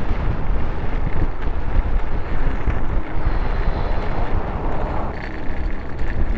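Wind noise on the microphone over a loud, steady rumble full of small jolts from a recumbent e-trike's tyres rolling over cobblestones.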